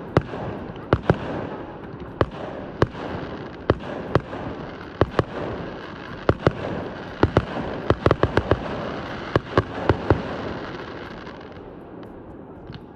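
Fireworks display: shells bursting in a stream of sharp bangs, about one or two a second, with a quick run of bangs about eight seconds in. A continuous wash of noise from further bursts lies between them and dies down near the end.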